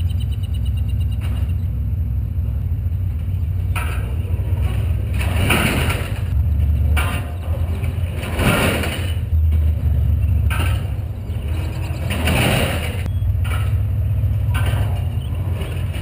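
454 big block Chevy V8 of a Klann-linkage walking machine running steadily with a deep low drone, while a noisy rush comes every two to three seconds as its heavy steel legs step, with a few short knocks between.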